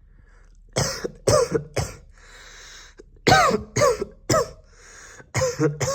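A person coughing on purpose in three fits of about three coughs each, half a second apart, with a noisy breath drawn between fits.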